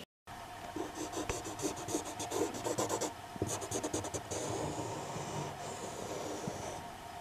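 The tip of a hand-held pen-like tool scratching along a stained wooden board, drawing lines in the grain. It goes in quick repeated short strokes at first, then one longer, steadier scratch.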